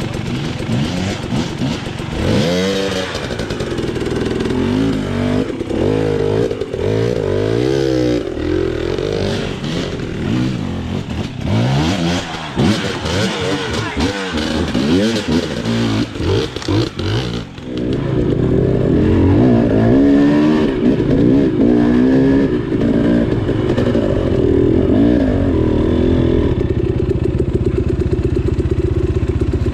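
Two-stroke enduro dirt bike engine revved hard over and over, its pitch rising and falling quickly as the rider works through a rough technical section. From about 18 seconds in it runs louder and steadier, settling to an even note near the end.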